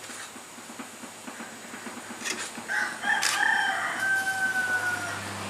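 A rooster crowing once, starting a little under three seconds in: a few short notes, then a long, slightly falling held note.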